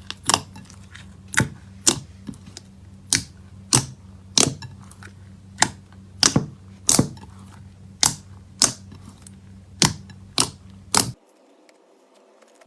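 Slime being pressed and squeezed by hand, giving sharp clicking pops about one and a half times a second over a steady low hum. The pops stop about a second and a half before the end.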